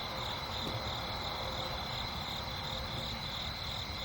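Night insects, crickets or katydids, chirping steadily in a pulsing rhythm about three times a second, over a faint hiss.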